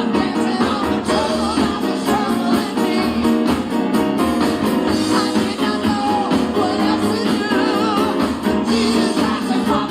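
Live gospel praise band playing with singing over a steady beat, guitar among the instruments.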